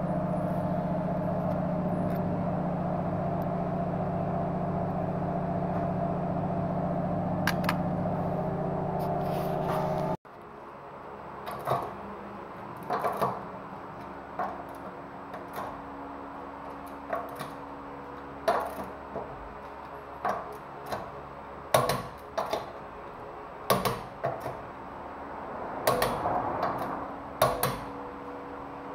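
A steady machine hum for about ten seconds that stops suddenly. Then come sharp metallic clinks and knocks at uneven intervals, about a dozen of them, from a wrench on the wheel nuts as a Citroën 2CV's steel wheel is fitted to the hub, with a faint steady hum behind.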